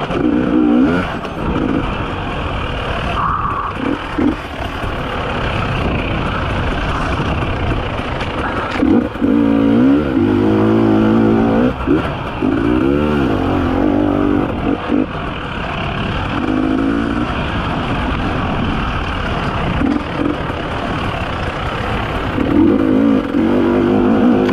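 Two-stroke 300 cc enduro motorcycle engine being ridden hard on a trail, its revs rising and falling again and again as the rider works the throttle. The longest run of revving comes in the middle. A steady rushing noise lies underneath.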